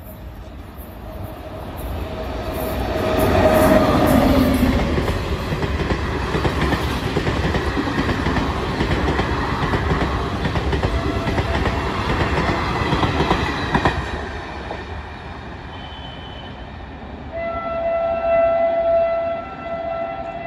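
WAP-7 electric locomotive and its express coaches passing at speed. A short horn note comes as the locomotive draws level about three seconds in, then the coaches rumble and clatter over the rail joints for about ten seconds before fading as the train runs away. Near the end a train horn sounds a steady note for about three seconds.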